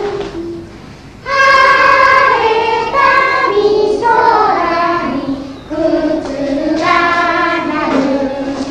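A group of young children singing a song together in unison, in phrases of held notes, starting after a short pause about a second in.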